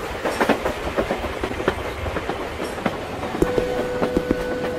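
Passenger train rolling along the rails, with irregular clacks of the wheels over rail joints over a steady rumble. A steady tone comes in about three and a half seconds in.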